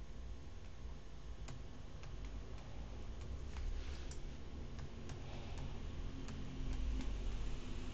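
Light irregular ticks and clicks of a stylus tapping and scratching on a tablet while writing, about one or two a second, over a low steady hum.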